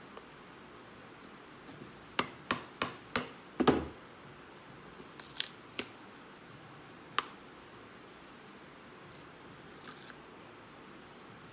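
Sharp knocks of a hand tool striking a leather-soled cowboy boot while the old sole is worked off: a quick run of five knocks about two to four seconds in, the last one loudest, then a few scattered clicks.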